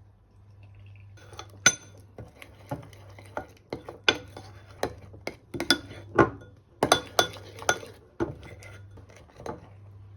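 Cutlery and dishes clinking: irregular taps and knocks of utensils against bowls and plates, over a faint steady low hum.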